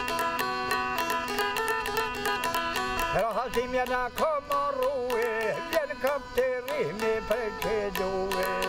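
Çifteli, a long-necked Albanian lute, plucked in quick repeated notes over a steady drone, joined from about three seconds in by a man singing a wavering, ornamented melody.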